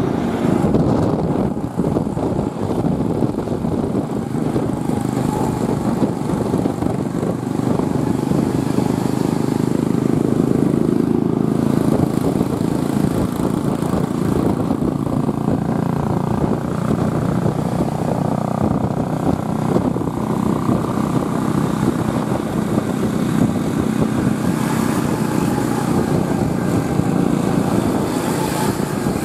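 Intercity bus's diesel engine running through a loud growling 'ngorok' exhaust: a continuous deep rumble that grows a little louder around ten seconds in.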